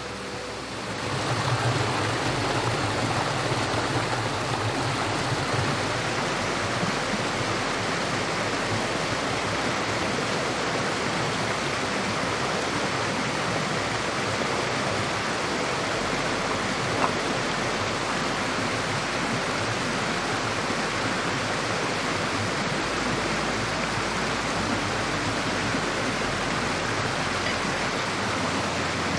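Steady rushing of water, swelling in about a second in and holding evenly, with a single faint click just past the middle.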